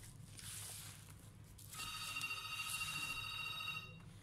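A steady electronic tone, held for about two seconds from a little under two seconds in, then cutting off.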